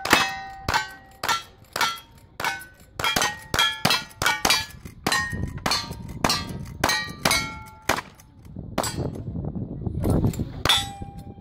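A rapid string of gunshots from cowboy-action firearms, each followed by the ringing clang of a steel target being hit, at about two shots a second. The firing slackens near the end, with one last shot and ring.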